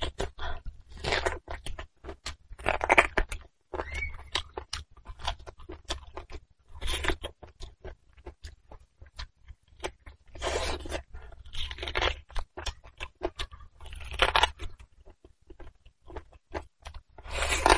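Close-miked eating of braised beef bone marrow and the soft tendon on the bone: wet chewing and sucking with many small mouth clicks, and a louder sucking burst every few seconds.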